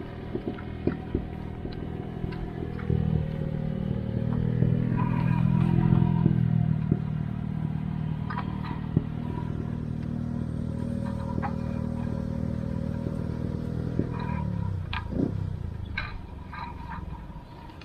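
A vehicle engine running steadily with scattered clicks and knocks; it is loudest a few seconds in, then drops in pitch as it slows about fifteen seconds in.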